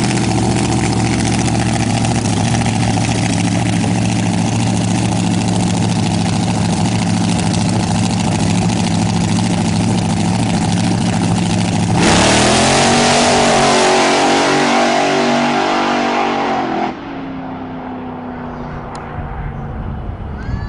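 Supercharged, alcohol-burning big-block Chevrolet engine of a rear-engine dragster idling loudly and steadily on the starting line. About twelve seconds in it launches at full throttle, the pitch climbing through the gears, for about five seconds. Then it drops off suddenly to a fainter, slowly falling drone as the car runs far down the track.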